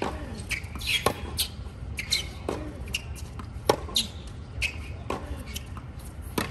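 Tennis rally on a hard court: sharp pops of the ball off racket strings and the court, a little over a second apart, with short squeaks of tennis shoes on the hard court between the hits.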